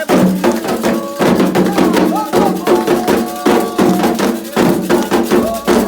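Candomblé ritual music: atabaque drums beating a steady, driving rhythm of rapid strikes under voices singing a chant.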